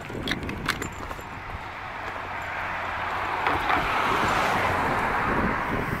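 A car passing in the street: its tyre and engine noise swells, is loudest about four to five seconds in, then begins to fade.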